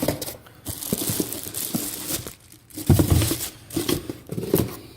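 Packaging crinkling and tearing as a new lawn-tractor air filter is unwrapped, in irregular rustles with a louder burst of handling about three seconds in.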